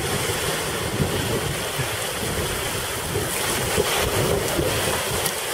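Small surf breaking and washing up a sandy beach, with steady wind rumbling on the microphone.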